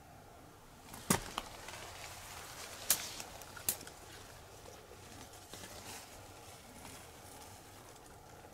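Rustling and crunching of someone moving through rubble and weeds, with three sharp cracks about one, three and nearly four seconds in.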